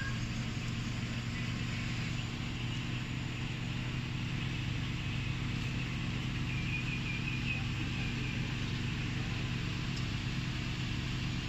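Car engine idling steadily with an even low hum, heard from inside the cabin.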